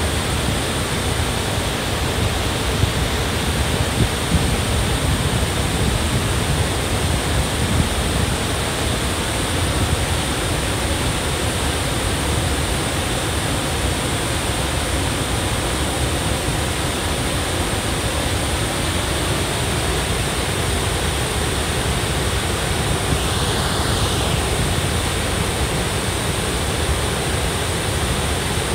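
Cameron Falls waterfall pouring steadily into its rocky pool: a dense, unchanging rush of falling water.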